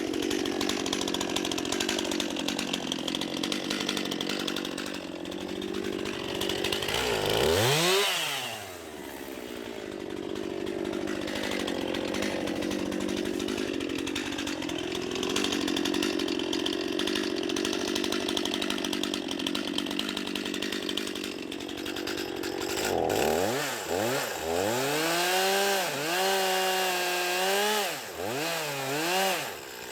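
Gasoline chainsaw with a 20-inch bar cutting through a large red oak log, its engine running steadily under load. About eight seconds in it revs up sharply and drops back. From about 23 seconds the engine revs up and down several times.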